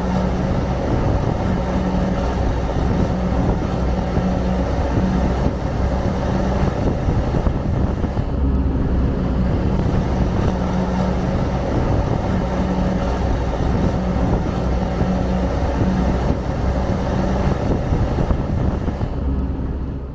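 A road vehicle's engine running steadily while driving, a low hum at a nearly constant level that cuts off at the very end.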